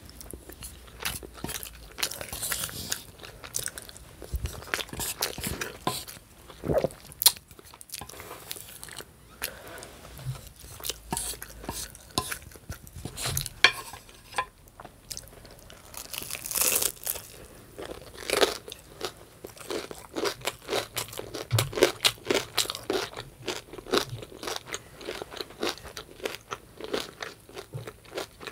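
A person chewing and crunching crisp breakfast food in irregular, rapid crunches.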